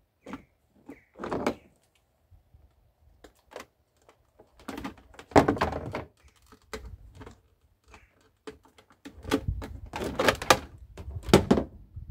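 Scrap plastic appliances and their mains cables knocking and clattering as they are rummaged through and tugged out of a heap, in irregular bunches of thumps and rattles.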